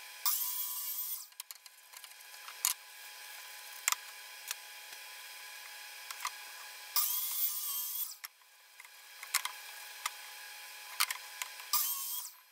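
DeWalt sliding miter saw cutting pine boards in three short runs of about a second each, the first just after the start, one about seven seconds in and one near the end. Between the cuts come scattered clicks and knocks of boards being handled.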